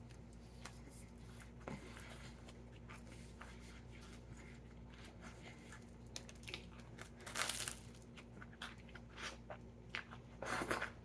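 Faint chewing and biting of a toasted sub sandwich, with small mouth clicks throughout and two louder bites or wrapper crinkles, about seven seconds in and near the end.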